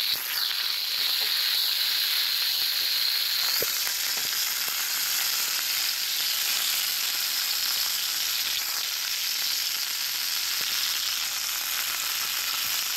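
Marinated chicken breast sizzling in hot oil in a nonstick frying pan, searing on its second side just after being flipped: a steady, high-pitched frying hiss.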